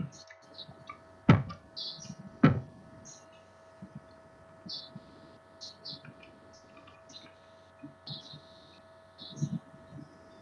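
A steady electrical hum over an online call's audio, with three sharp clicks in the first three seconds and faint scattered noises after them.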